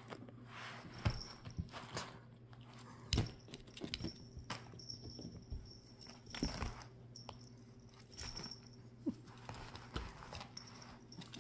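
Wand cat toy, a fuzzy ball with curly ribbons on a wooden stick, swished and tapped against a leather sofa armrest, giving irregular sharp taps and knocks between soft rustles as a cat plays at it. A faint steady low hum runs underneath.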